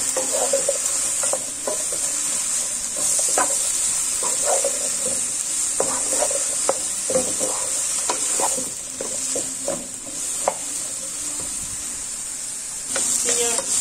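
Diced vegetables sizzling in oil in a non-stick frying pan while a wooden spatula stirs them, with many short scrapes and knocks of the spatula against the pan. The sizzle drops for a few seconds late on, then comes back.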